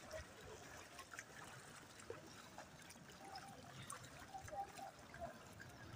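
Faint trickling and sloshing of shallow floodwater, with scattered small splashes.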